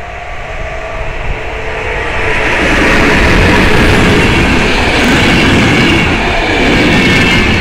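PKP Intercity electric locomotive and its passenger coaches passing at speed, close by. The rushing wheel and rail noise grows louder over the first three seconds as the locomotive reaches the crossing, then holds steady as the coaches roll past.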